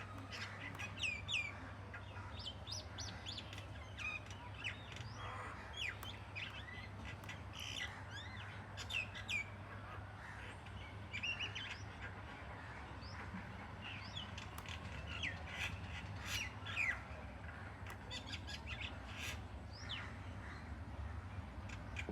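Several wild birds chirping and calling: many short, sharp chirps and quick rising and falling whistles overlapping, with a steady low hum underneath.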